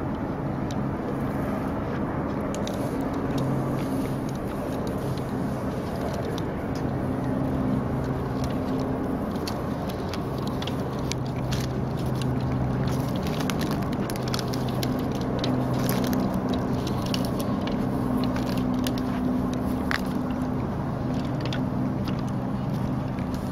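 Footsteps crossing a suspension bridge of redwood planks hung on cable and manila rope, heard as scattered light clicks and knocks. A steady low hum runs under them throughout.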